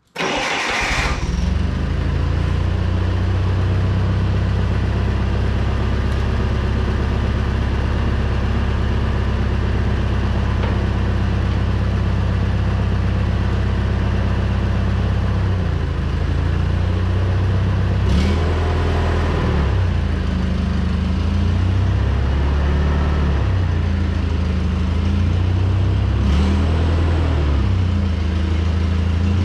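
An old Hyster forklift's engine starting abruptly and settling into a steady idle. From about 16 seconds in its speed rises and falls again and again as the forklift is driven back and forth, with two short sharp clicks along the way.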